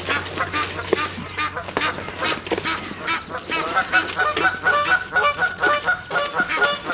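Geese honking: a flock calling over and over in short, overlapping honks, growing busier about halfway through.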